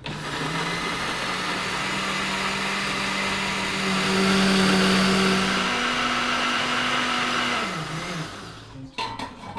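Electric countertop blender running, blending tomatoes and hot peppers: the motor starts abruptly and whirs steadily, its pitch steps up about two-thirds of the way through, then it winds down and stops about a second before the end.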